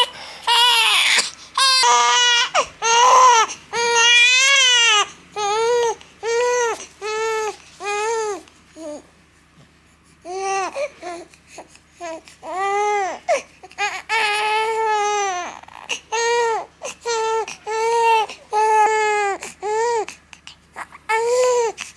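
One-month-old baby crying in a string of short wails that rise and fall in pitch, with a brief lull about halfway through.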